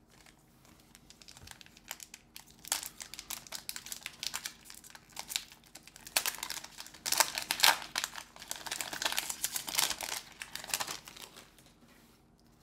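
Plastic wrapper of a Pokémon card booster pack being torn open and crinkled: a dense run of crinkling rustles that builds up, is loudest in the second half, and stops about a second before the end.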